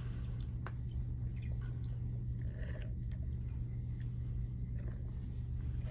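Steady low hum, with faint scattered clicks and soft plastic handling noises from a squeeze wash bottle being used to rinse a probe.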